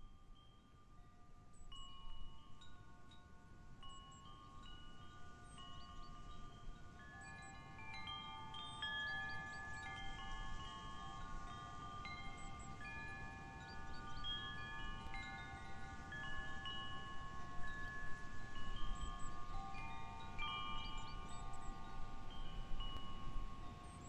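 Wind chimes ringing in the breeze: many tuned notes struck at random and left to ring, overlapping. They start sparse and grow busier after about two seconds. A low rumble of wind lies under them.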